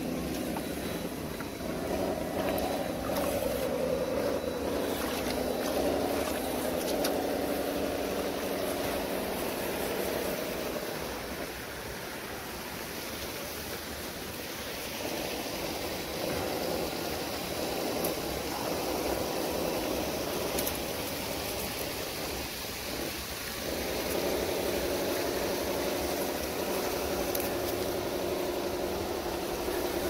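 Electric motors and gearboxes of scale RC crawler trucks whining as they crawl over rock and through mud and shallow water. The whine comes in two long stretches, one from about two seconds in and another over the last few seconds, over a steady rush of water.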